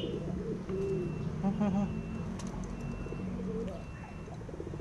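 Domestic pigeons cooing, low and repeated, with a brief louder, higher-pitched call about one and a half seconds in.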